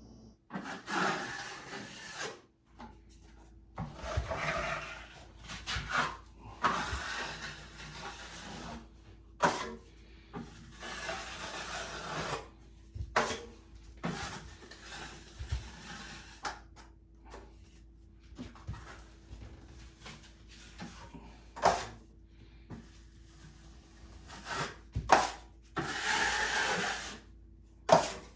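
Repeated rasping strokes of a hand tool worked over patched drywall and joint compound, each a second or two long with short pauses between.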